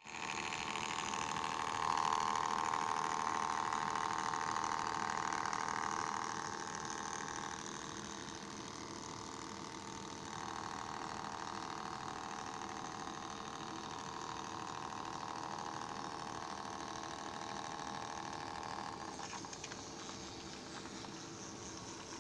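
Märklin 3468 H0 model diesel locomotive running on track: its electric motor whirs steadily with the rumble of wheels on the rails. The whir grows louder about two seconds in and shifts in level a few times.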